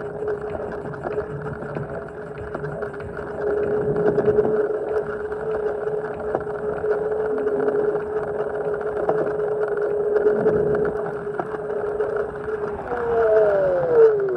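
Xiaomi Mi Pro 2 electric scooter riding at steady speed: a constant hub-motor whine over wind and tyre noise. Near the end the whine falls in pitch as the scooter slows down.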